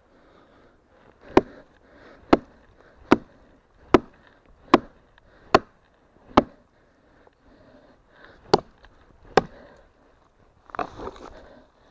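Nine sharp blows of a hand tool striking wood: seven in a steady rhythm a little faster than one a second, a short pause, then two more. A brief rustling of handling follows near the end.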